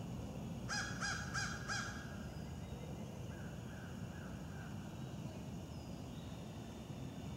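A crow cawing four times in quick succession, then four fainter caws a second or so later, over steady low background noise.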